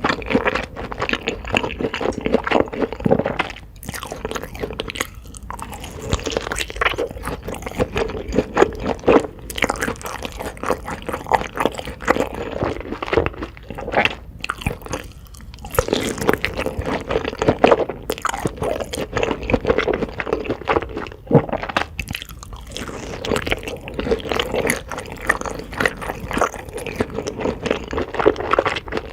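Close-miked eating: a person chewing and crunching food, a steady run of crisp crackling bites and chewing with a few short pauses.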